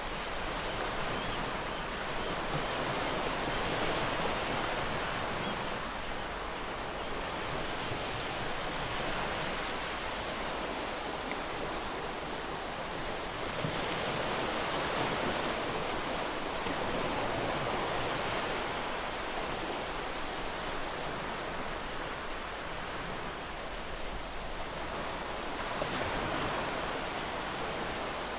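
Ocean surf breaking and washing on the shore in a continuous rush, swelling and easing every few seconds as waves come in.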